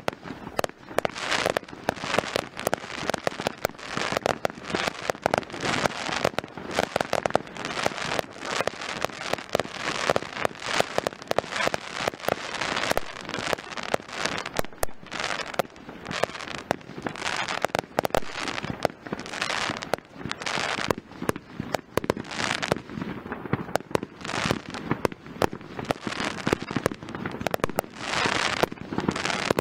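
Fireworks display: aerial shells bursting in a rapid, continuous barrage of sharp bangs, with dense crackling stretches between them.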